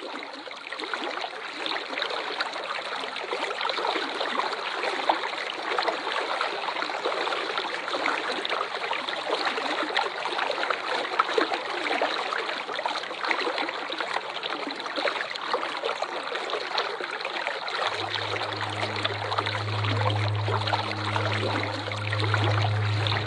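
Waterfall water rushing and splashing in a dense, even stream of noise. Near the end a low steady hum joins underneath.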